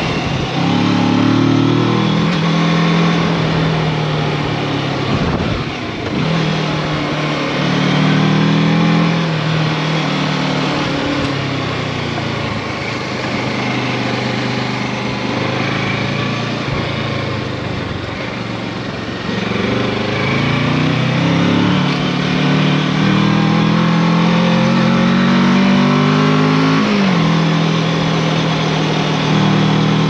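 Kawasaki Versys 650 parallel-twin engine under way, its pitch rising and falling again and again as the throttle opens and closes, with a sudden drop near the end, over steady tyre and wind noise on a gravel road.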